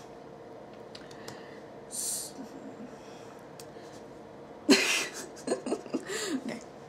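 A woman breathes out audibly, then a couple of seconds later gives a sharp breathy gasp and breaks into short bursts of laughter.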